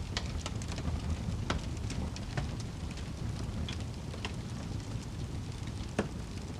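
Wood fire burning in a fireplace: a steady low rush of flames with scattered sharp crackles and pops from the logs, the loudest pop near the end.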